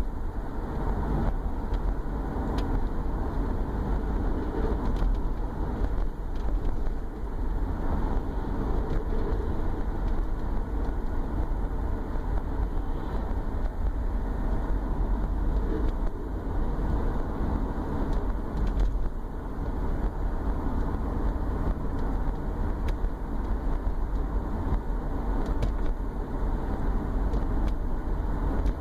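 Cabin noise of a 2011 Subaru Forester's flat-four running under way, with a steady low drone underneath. The drone is unexplained and started after the engine was pulled to fix an oil leak. It shows under light load with the torque converter unlocked, around 1,000–1,500 rpm.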